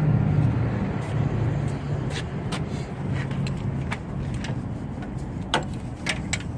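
A vehicle engine running, its low hum loudest at the start and easing off after about a second. Scattered sharp light clicks and taps follow, like tools and metal parts knocking.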